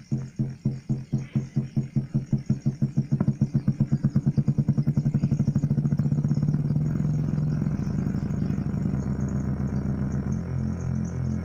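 Low pulsing tone from a small speaker unit. The pulses speed up steadily until, about six seconds in, they blur into a continuous throbbing drone, much like an engine revving up from idle.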